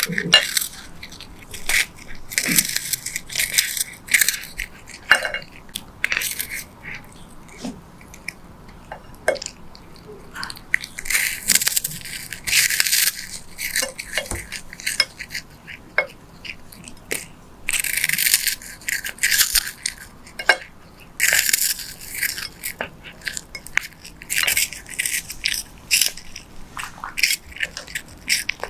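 A cat licking and biting at a lollipop: raspy scraping and crunching in spells of one to two seconds, with small clicks between them.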